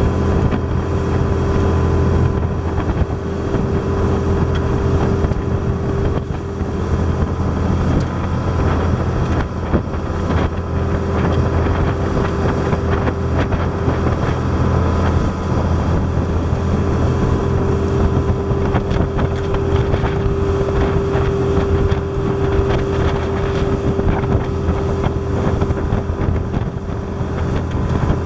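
Boat's engine running steadily at speed, a constant drone, under the rushing hiss of the wake and spray along the hull, with wind gusting on the microphone.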